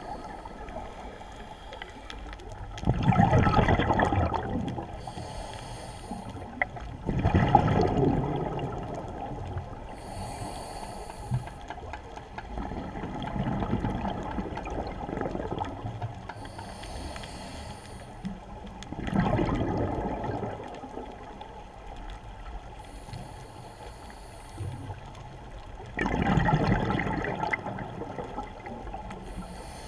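Scuba diver breathing through a regulator underwater. Each exhalation is a burst of bubbling that lasts about a second and a half, and the breaths come about every six seconds, five in all. A short, thin hiss of inhalation through the regulator falls between them.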